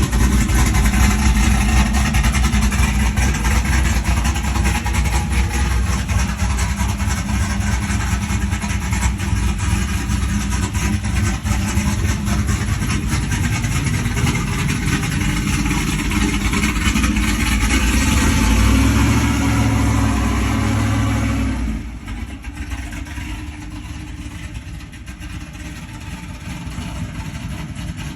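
Modified 5.3-litre high-output V8 truck engine running loud, heavier for a few seconds, then dropping suddenly to a quieter running about 22 seconds in.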